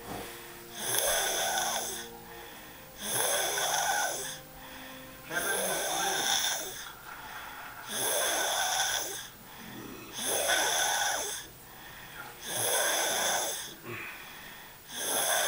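A sleeper snoring loudly and regularly: seven snores, one about every two and a half seconds, each lasting about a second.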